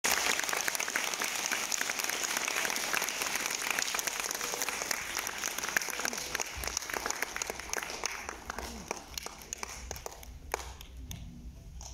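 Audience applauding: dense clapping that dies away over the last few seconds, leaving a few scattered claps.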